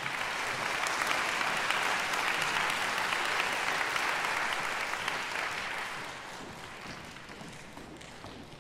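Concert-hall audience applauding, swelling quickly and then dying away over the last few seconds.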